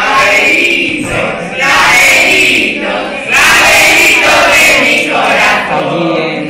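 A group of young voices, mostly girls, singing a song together, loudly and without instruments, in phrases of one to two seconds with short breaks between them.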